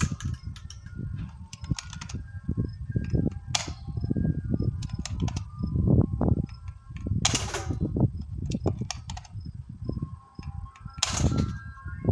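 Airsoft AR-15 firing single shots on semi-auto, sharp pops at irregular spacing. Wind buffets the microphone throughout and is often louder than the shots.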